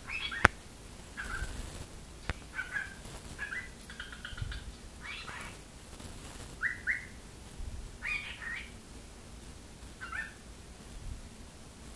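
Cockatiel chirping and whistling in short calls, about one a second, some as quick rising pairs of notes. A sharp click about half a second in is the loudest sound.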